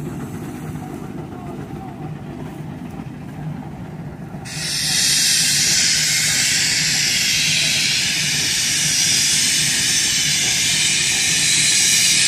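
Twin-cylinder Rumely steam traction engine working under load pulling a plow. About four and a half seconds in, a loud, steady hiss of steam blowing off starts suddenly and continues.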